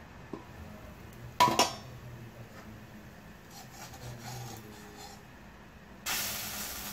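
A metal lid lifted off an iron kadai with a loud clatter about a second and a half in, then a spatula scraping faintly against the pan under an uthappam. Near the end a sudden steady sizzle starts as the uthappam is flipped onto the hot oiled pan.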